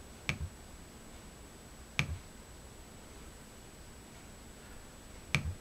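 Three sharp clicks, the second about two seconds after the first and the third about three seconds later: the first-generation Nest Learning Thermostat being pressed in to select on-screen options.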